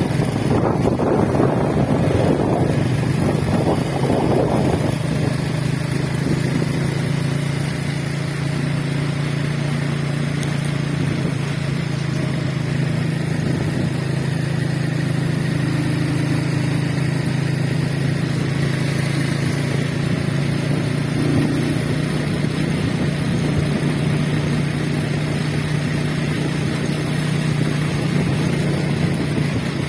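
A motor running steadily at constant speed, a low, even drone; the first few seconds also carry a rougher, noisier sound that settles by about five seconds in.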